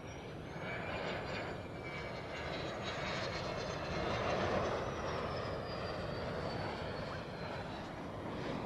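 F-16 fighter jet flying past on landing approach with gear down. Its jet engine makes a steady rush with a thin high whine that rises slightly and then falls in pitch as the aircraft goes by. It is loudest about halfway through.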